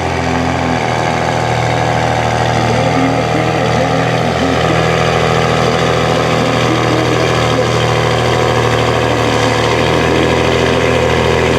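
Pulling truck's engine running loud at steady revs, with no marked rise or fall in pitch.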